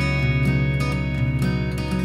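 Background music led by acoustic guitar, with a steady strummed rhythm.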